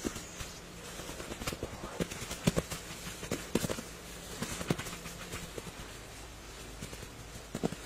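Dull thuds of grass turf sods being thrown and slapped down onto a packed-earth roof, coming in irregular clusters of soft knocks.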